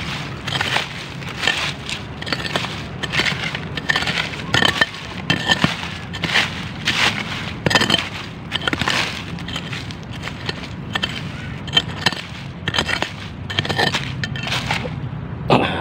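Hand digging with a hoe: repeated strikes and scrapes into soil, roughly one to two a second, digging out a metal detector target.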